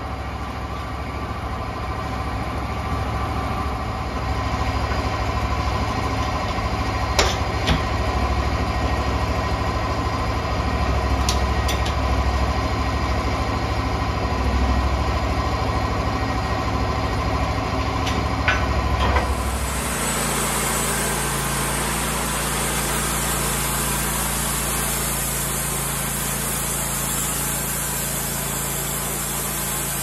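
Bandsaw sawmill's engine running steadily at idle, with a few sharp metal clanks. About two-thirds through the sound changes suddenly and a steady hiss is added over the engine.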